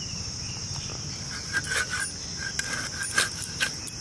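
Steady high chirring of insects, with a handful of light clicks and knocks in the second half as a knife cuts through a catfish.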